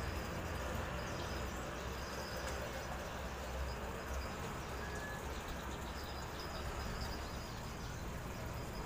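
Steady outdoor background noise: a low rumble with faint, intermittent high-pitched chirping over it.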